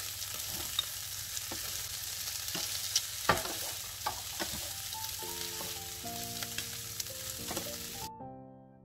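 Radish cake, bean sprouts and Chinese chives sizzling in a frying pan as they are stir-fried, with sharp scrapes and knocks of a wooden spatula against the pan. Soft piano music comes in about five seconds in, and the sizzling cuts off abruptly near the end.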